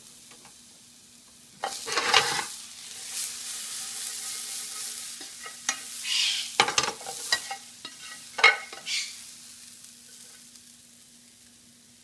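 Plastic kitchen tongs stirring and scooping stir-fried julienned carrots in a frying pan, with a sizzle and clicks of the tongs against the pan. The sound comes in several bursts, the loudest about two seconds in and about eight and a half seconds in, and dies away after about nine seconds.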